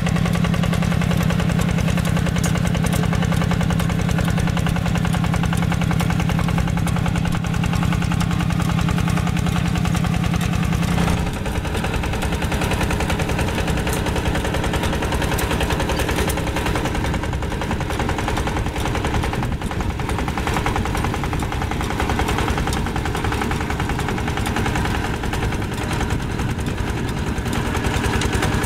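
Yanmar two-wheel walking tractor's diesel engine chugging steadily with rapid, even firing beats as it pulls a rotary tiller through dry soil. The tone shifts about eleven seconds in, losing a strong low hum.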